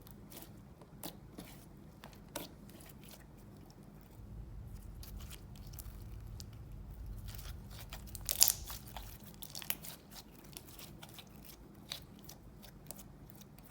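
Slime being squished and worked by hand, giving scattered sticky clicks and crackling pops, with a louder cluster of pops a little past the middle.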